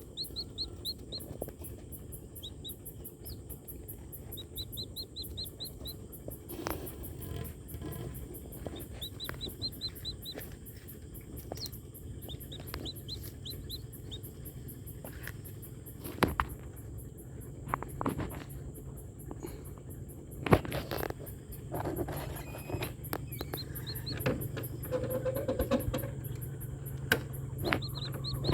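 Newly hatched chicken chicks cheeping in quick runs of short, high, falling peeps, with scattered knocks, the loudest about twenty seconds in, over a low steady hum.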